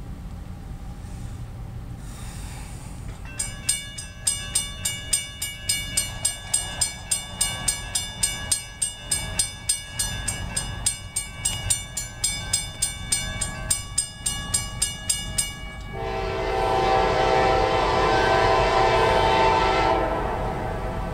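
Grade-crossing warning bell starts ringing about three seconds in, as the crossing is activated by the approaching train, with a steady ding about two and a half times a second that stops after about twelve seconds. It is followed by one long blast of about four seconds from the air horn of the lead locomotive, a KCS ES44AC.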